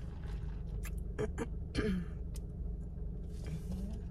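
A person clears their throat once, about two seconds in, just after a few small clicks, over a steady low background hum.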